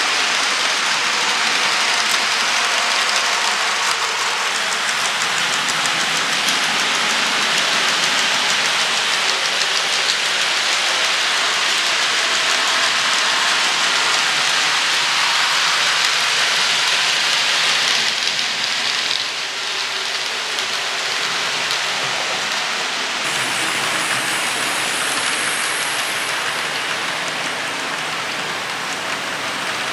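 HO scale model trains rolling on the track, the small metal wheels making a steady, dense rattling hiss. The level drops a little about two-thirds of the way through and the tone shifts soon after.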